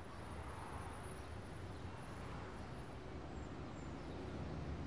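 Steady city street ambience: a low traffic rumble under an even hiss, with no distinct events.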